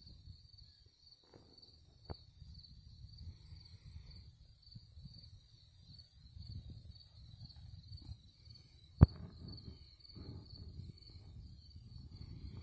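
Crickets chirring steadily in an evenly pulsing high trill, over a low, uneven rumble on the microphone. A single sharp click about nine seconds in is the loudest sound.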